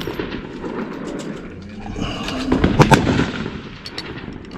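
A rifle shot about two and a half seconds in, its report ringing out briefly.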